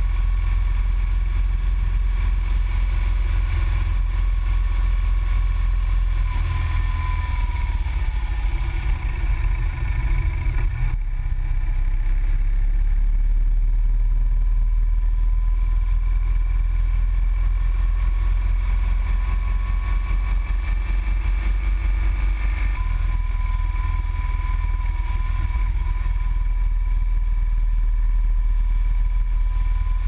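Motorcycle engine running steadily at road speed under a heavy low rumble, its pitch dipping briefly about a quarter of the way in and the sound changing abruptly about a third of the way in.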